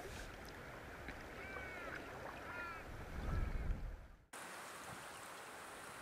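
Faint outdoor ambience with a few short chirps from a bird in the first half, then a low rumble of wind on the microphone. It breaks off abruptly and a steady faint hiss follows.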